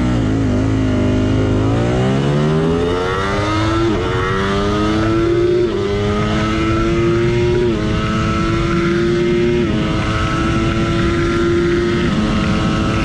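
Ducati Panigale V4R's 998 cc V4 engine under full-throttle acceleration towards top speed. The pitch climbs through each gear and drops sharply at four quick upshifts, then holds nearly steady at high revs near the end.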